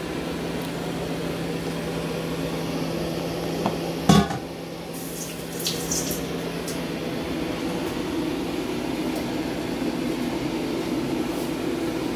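Kitchen work sounds: a steady hum that stops about four seconds in with a loud clunk, then a few light clinks of dishes, over a steady hiss.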